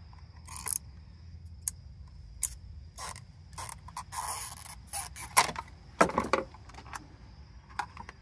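Irregular plastic clicks, creaks and scrapes as a screwdriver pries at the tabs of a 2010 Honda Odyssey's fuel pump module and the pump is unclipped from its plastic housing. The loudest snaps come a little past halfway.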